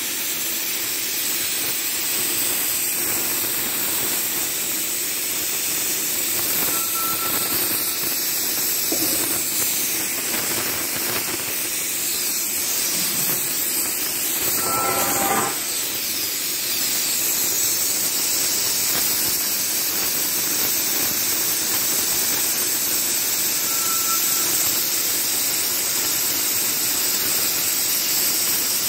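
Oxy-fuel cutting torch on a rail-mounted track carriage hissing steadily as its oxygen jet cuts through thick iron plate. About halfway through there is a brief pitched squeal.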